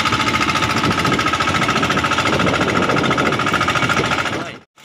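A fishing boat's engine running steadily with a rapid, even pulse. It cuts off abruptly for a moment near the end.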